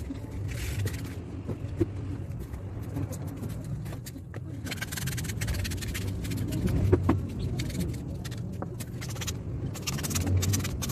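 Thin PVC plastic pieces being handled and bent by hand, scraping and rustling against each other and the fingers, over a steady low hum.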